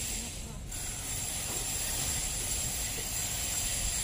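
Wind buffeting the phone's microphone in open air: an uneven low rumble under a constant hiss, with faint voices in the background.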